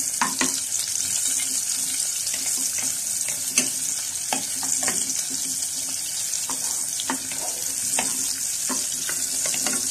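Sliced onion sizzling in hot soybean oil in a nonstick saucepan, with a steady frying hiss, while a wooden spoon stirs it and knocks against the pot now and then.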